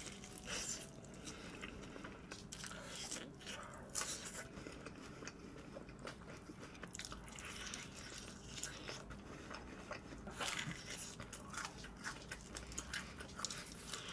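Close-miked crunching and chewing of crispy fried chicken, with sharp crackles each time the crust is bitten, the loudest cluster about ten and a half seconds in.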